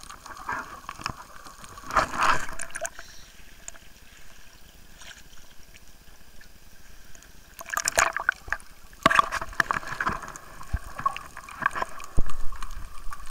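Water splashing and sloshing in irregular bursts, with a low rumble coming in near the end.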